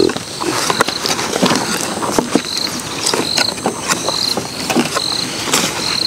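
Solar fence energizer pulsing, with a sharp click about every two-thirds of a second. Short high chirps repeat roughly once a second from about halfway in.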